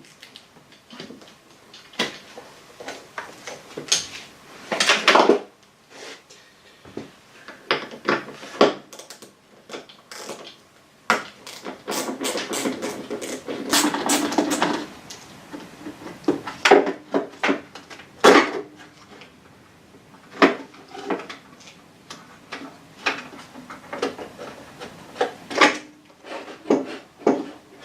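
Hand tools clinking and knocking against metal as the wiper bracket and linkage are unbolted, a string of irregular sharp clicks with a longer rattling stretch about halfway through.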